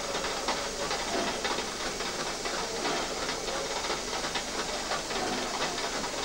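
Steady steam hiss from a Škoda-built 2-8-0 steam locomotive (ČSD class 434.1), with light, irregular clicking through it.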